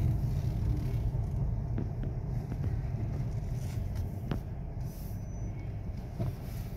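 Steady low rumble of a car's engine and road noise heard from inside the cabin while driving, with a few faint clicks.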